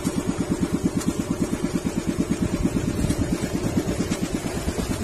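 Small inboard engine of an outrigger boat (bangka) running steadily under way, chugging at about nine beats a second.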